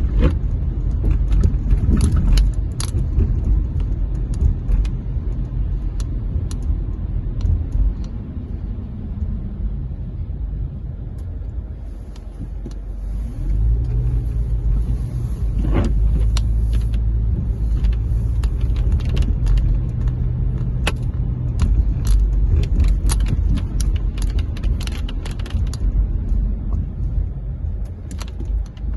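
A car on the move: steady low road and engine rumble, with frequent small clicks and rattles.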